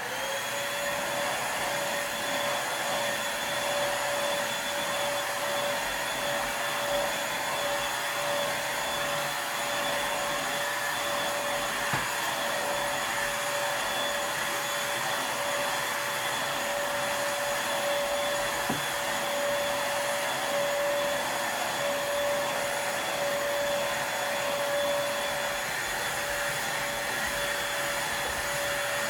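Black & Decker vacuum cleaner switched on and running steadily: a constant motor whine over the hiss of rushing air.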